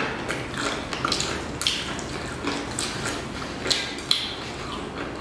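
Eating and food handling: a dozen or so short, irregular clicks and crackles of food and its packaging.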